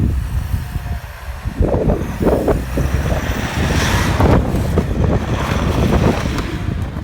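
An off-road SUV's engine running as it drives over an off-road obstacle, rising and falling in swells, with a heavy low rumble.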